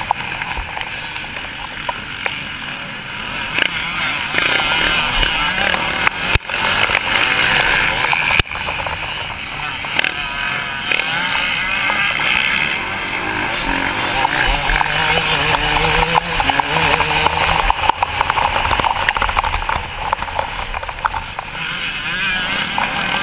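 Motocross bike engine revving hard, its note rising and falling with throttle and gear changes as it races around a dirt track, heard close up from a camera on the rider, with wind rushing over the microphone.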